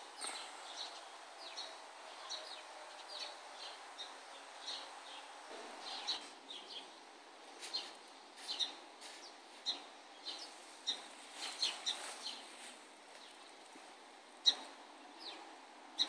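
Small birds chirping faintly, short high notes repeated irregularly, a few to every second.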